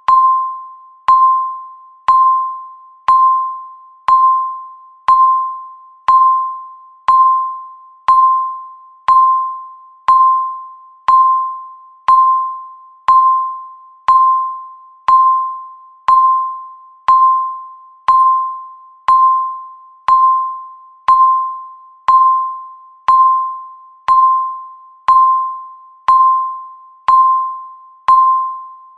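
Countdown timer's electronic beep sounding once a second, each beep a single clear tone that starts sharply and fades out before the next.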